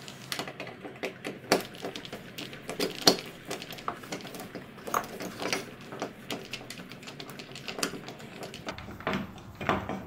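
Hand screwdriver turning the screws out of a sliding patio door's metal handle, a run of small irregular clicks and ticks, a few a second.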